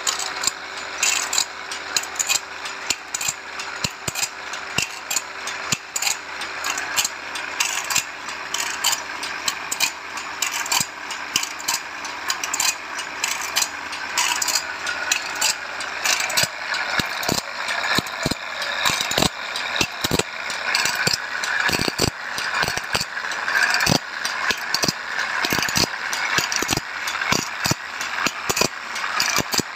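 Band saw blade sharpening machine running: its grinding wheel grinds the blade's teeth with a steady gritty hiss, over a quick, uneven run of sharp mechanical clicks and rattles as the blade is worked tooth by tooth. A faint steady hum stops about halfway.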